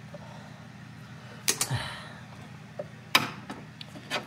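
Three sharp plastic clicks and knocks from hands working at a headlight bulb's wiring connector and its plastic locking clip behind the headlight housing. A steady low hum runs underneath.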